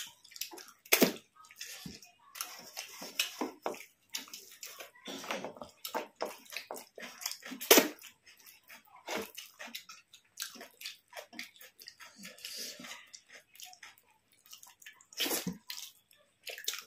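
Close-up eating sounds of rice and fish curry: irregular wet chewing, lip smacks and small clicks, with a few louder smacks, one about eight seconds in and a cluster near the end.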